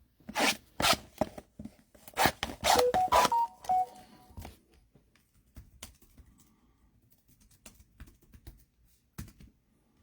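Trading-card pack wrappers and cards being handled: crinkling, tearing and rustling, thick for the first four seconds or so and then thinning to a few faint clicks.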